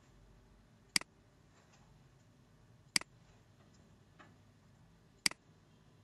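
Three sharp computer mouse clicks, about two seconds apart, over a low steady room hum.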